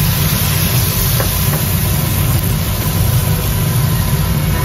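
Shiitake mushroom slices, wet from blanching, sizzling in hot oil with chili and garlic as a spatula stirs them, over a loud steady low hum.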